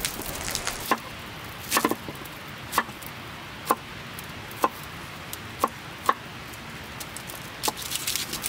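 Large fixed-blade knife chopping garlic cloves on a wooden board, a sharp knock of the blade on the wood about once a second.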